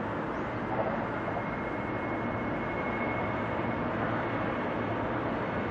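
Boeing 747-400's four jet engines on landing approach, a steady jet rumble with a thin high whine that grows stronger about two seconds in.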